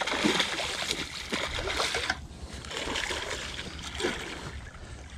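A hooked bowfin thrashing and splashing at the surface of shallow water as it fights the line, with a short lull about two seconds in.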